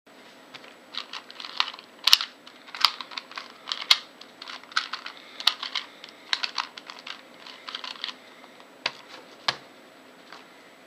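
Quick, irregular plastic clicks and clacks from a LanLan 2x2 puzzle cube being turned and handled in the hands, like typing. Near the end come two sharper knocks, then the clicking stops.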